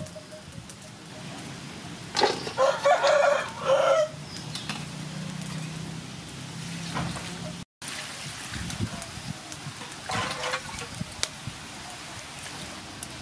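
A rooster crowing once, about two seconds in, in a call of several linked syllables lasting about two seconds. A shorter, fainter call follows about ten seconds in.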